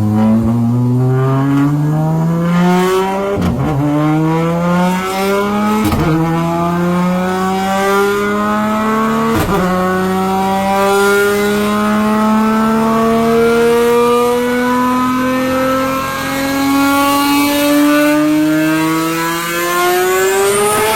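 Big-turbo Toyota Supra Mk4 2JZ inline-six at full-throttle acceleration, its pitch climbing steadily. It breaks briefly three times in the first ten seconds at the gear changes, then pulls one long gear to high rpm and drops off at the very end.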